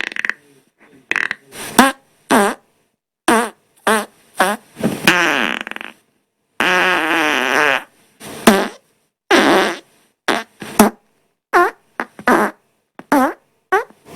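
A rapid string of more than a dozen farts, one after another with hard cuts of dead silence between them. Most are short, pitched and bending in pitch; two run for about a second each, near the middle.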